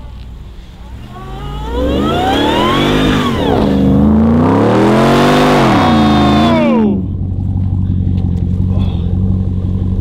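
Ram TRX's supercharged V8 revving hard as the truck ploughs into deep snow. The engine pitch climbs and falls several times over about five seconds as the truck bogs down and gets stuck. The revving cuts off abruptly about seven seconds in, leaving a steady low engine rumble.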